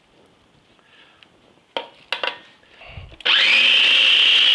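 A few short clicks, then a food processor switches on about three seconds in and runs steadily with a high whine, puréeing cooked pea pods with some of their cooking liquid.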